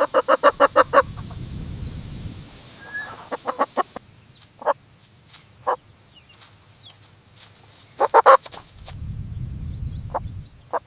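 Chickens clucking: quick runs of short clucks near the start, a few seconds in and again near the end, with single clucks in between. A low rumble comes in twice, each time for about a second and a half.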